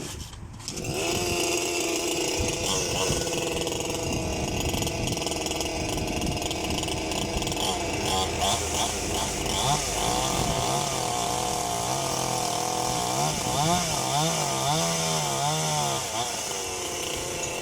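Energoprom PTsB-16 petrol chainsaw running, its engine revving up and down repeatedly in the second half.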